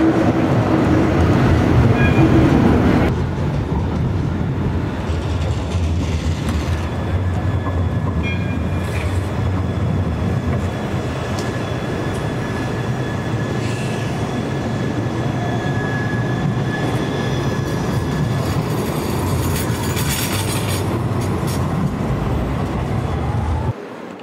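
Tram running past at close range: a steady, loud rumble of steel wheels on the rails, with a thin high whine held for several seconds midway.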